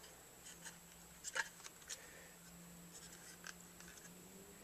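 Faint, scattered clicks and scrapes of hard plastic being handled and pushed: the opened Dyson V6 battery pack's casing and LED light guide. A faint steady low hum runs underneath.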